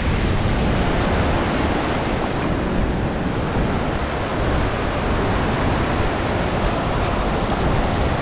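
Ocean surf washing onto a beach, a steady rush of noise, with wind rumbling on the microphone.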